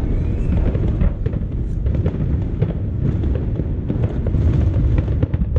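Aerial fireworks going off in quick succession: a continuous low rumble of booms with many sharp cracks and crackles.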